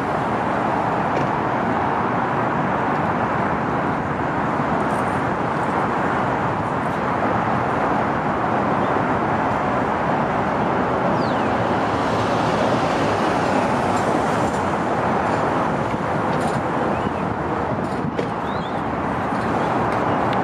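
Steady city street traffic noise: a constant rush of passing vehicles, with a few faint high chirps in the second half.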